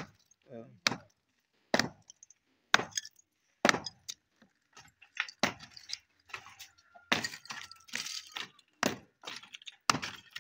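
Old tiles being chipped off a concrete roof slab with a hand tool: sharp knocks about once a second, with the crack and clink of broken tile pieces.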